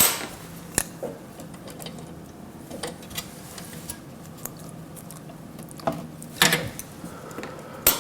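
Scattered clicks and light knocks of plastic tubing and fittings being handled while a black hose is worked onto a sterilizer water pump's fitting. The loudest come right at the start and about six and a half seconds in, over a faint steady hum.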